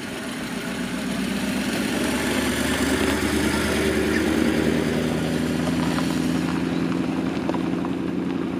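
Maserati Khamsin's V8 engine pulling away at low speed. Its note swells as the car passes, loudest about halfway through, then eases as it drives off.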